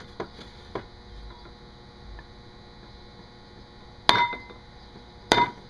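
Two sharp strikes of a bronze-and-steel hatchet head on a coconut shell, about a second apart near the end, each with a brief metallic ring.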